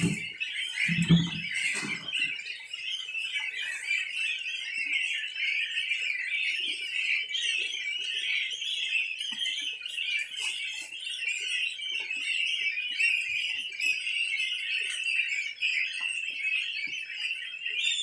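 Dense, steady high peeping of a large flock of ducklings. Two short low sounds stand out, one at the start and one about a second in.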